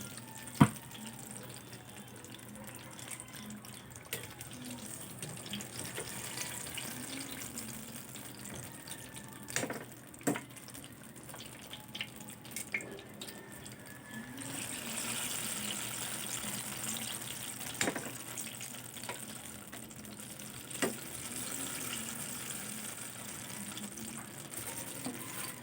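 Water running from a tap into a sink, coming on a little past halfway, with scattered sharp clinks and knocks.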